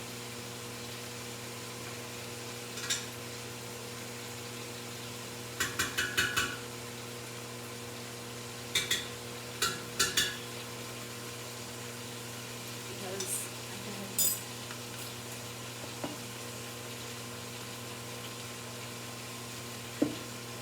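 Cooking utensils clinking and knocking against a pot and dishes in short, scattered clatters, with a quick run of about five around six seconds in, over a steady hum and light sizzling from the stovetop.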